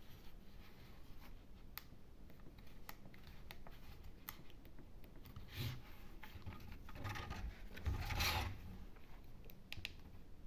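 Hands handling unboxing packaging: scattered light clicks and rubbing, with a short scrape about five and a half seconds in and a longer, louder scraping rub about seven to eight seconds in.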